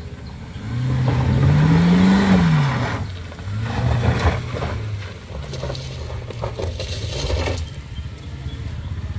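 Car engine revving as a small MPV climbs a steep loose-gravel slope: the engine note rises about a second in, then drops near two and a half seconds and settles lower. The tyres crunch and scrape over loose stones for several seconds as the car pulls past.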